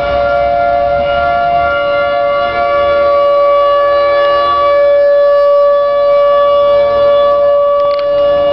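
Outdoor tornado warning siren sounding one long, steady wail, several tones held together at an unchanging pitch.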